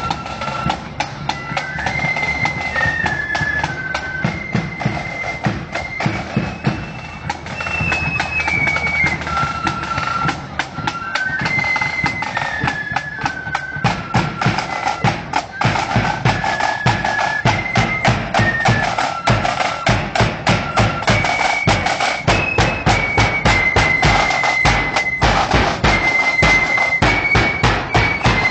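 Marching flute band playing a tune: shrill flutes carry a stepping melody over side drums and a bass drum. The band grows louder as it comes up close, with the drumming strongest in the second half.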